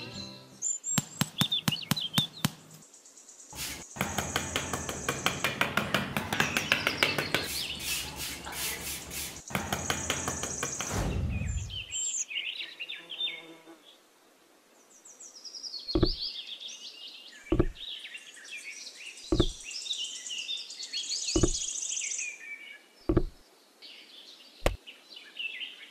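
Small hand tools working clay and miniature bricks. A dense run of rapid scraping and clicking lasts about ten seconds, then stops. After a short pause come six sharp knocks, evenly spaced about one and a half seconds apart, with bird and insect chirps behind.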